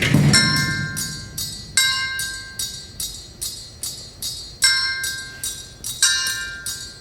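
Percussion ensemble playing a steady fast ticking pulse, with high ringing pitched tones struck four times and left to die away; the low drums are silent.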